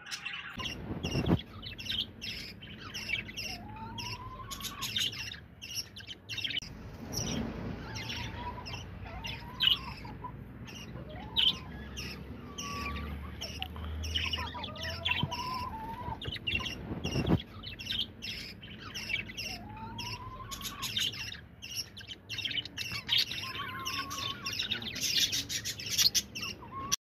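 Small caged birds chirping and twittering continuously, a dense run of short high chirps with occasional rising whistled notes. Two dull knocks come about a second in and again about 17 seconds in.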